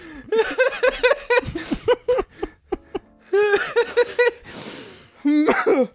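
Several men laughing hard together in fast rhythmic 'ha-ha-ha' pulses, in two long fits with a short lull between them. It ends in a higher-pitched, squealing burst of laughter.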